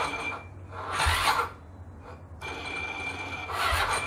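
Ducati 916 V-twin's electric starter making rasping, sluggish attempts to turn the engine over in repeated tries, the longest near the end, with a low thud in two of them: the engine does not fire, the sign of a low battery.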